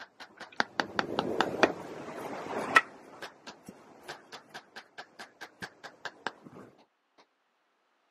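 Hammer tapping a wood-carving chisel into a block of wood, a steady run of light strikes about four a second, stopping suddenly about seven seconds in.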